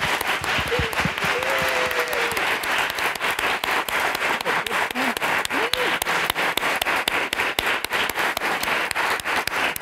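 Lecture-hall audience applauding steadily throughout, many hands clapping at once.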